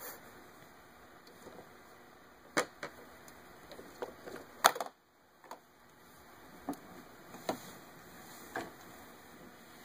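About half a dozen sharp knocks and clacks of hard plastic as a Little Tikes Cozy Coupe ride-on toy car is handled and bumped, the loudest a little before the middle.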